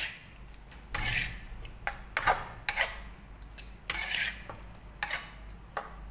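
Metal utensil scraping and clinking against a frying pan while stir-frying pork and chilies, in about nine irregular strokes.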